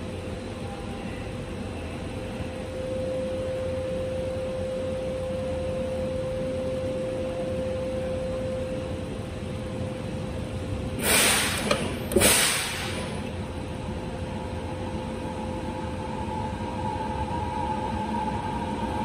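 Inside a Kobe Municipal Subway 1000-series car standing still: a steady hum with a faint held tone, then a little past halfway two short hisses of compressed air about a second apart from the car's pneumatic equipment.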